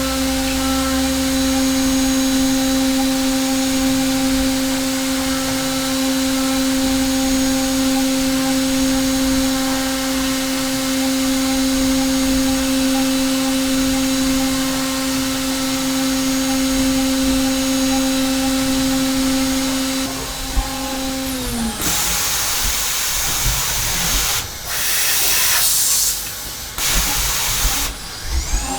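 Hermle C400 CNC spindle running a 4.5 mm three-flute carbide end mill on a finishing pass in aluminium, a steady high whine over cutting noise. About twenty seconds in the spindle winds down in a falling pitch, then comes several seconds of loud hissing bursts, and near the end the spindle spins up again in a rising pitch.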